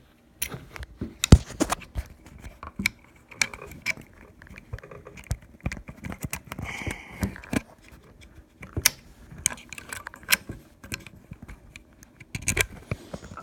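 Small steel parts of a Marlin 336 lever-action rifle clicking and scraping as they are handled and fitted back together, with irregular sharp clicks, the loudest about a second in.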